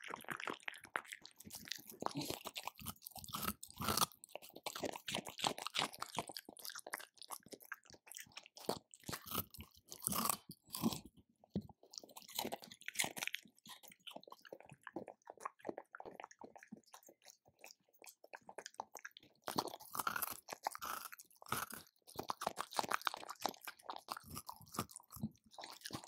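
A dog eating, its jaws crunching and chewing hard food in quick irregular bites. The crunching thins out for a few seconds past the middle, then picks up again.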